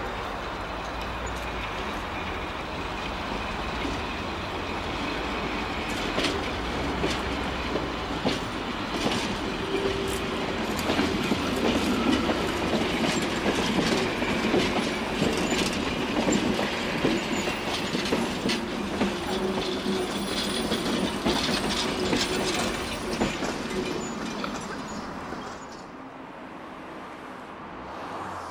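Electric railcar T3 of the Trossinger Eisenbahn rolling slowly with the ET 91 glass railcar coupled behind. Its wheels click over rail joints and points amid a steady running rumble and hum. The sound grows quieter near the end.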